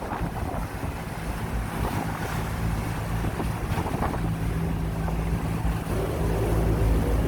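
Whale-watching boat's engine running with a steady low hum that grows louder near the end, with wind gusting on the microphone.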